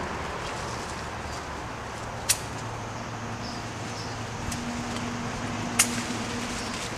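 Two sharp snaps about three and a half seconds apart, from brush being pulled and broken at the hedge, over a steady low outdoor hum.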